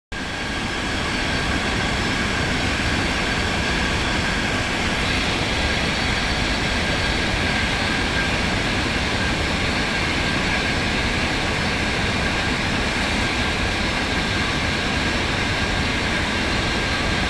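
Argon (TIG) welding: a steady hiss with a thin high whine running through it, even and unbroken.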